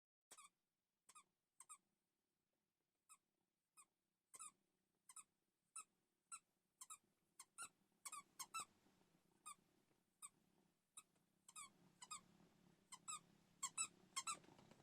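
A dog chomping on a rubber squeaky toy, making short, high squeaks one after another, sparse at first and then coming faster, some in quick pairs.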